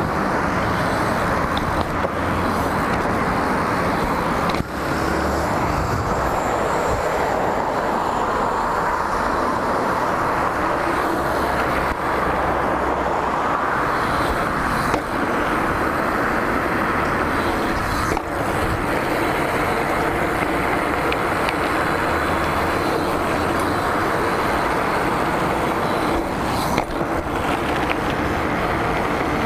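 Steady rushing noise of a BMX bike being ridden along a road: wind on the action camera's microphone and the tyres rolling on asphalt. A few brief knocks from bumps are heard along the way.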